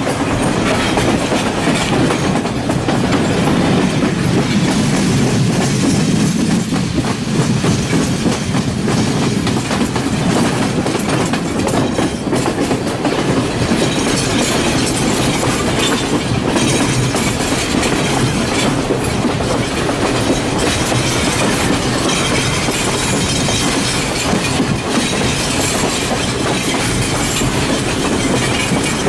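Sri Lanka Railways passenger train running on the rails, heard from on board: a steady rumble with the clack of wheels over rail joints.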